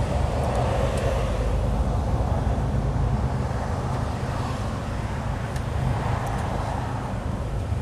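Lorry's diesel engine running steadily, heard from inside the cab, with tyre and road noise from the wet motorway.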